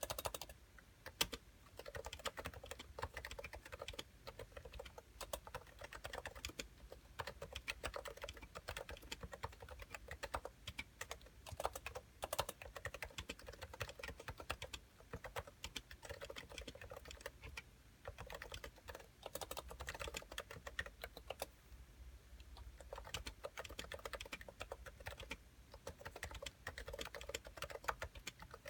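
Continuous fast typing on a Cooler Master NovaTouch keyboard with 45 g Topre electrostatic-capacitive switches and thick PBT keycaps, a dense run of keystrokes with a few short pauses, around 3 s, 18 s and 22 s in.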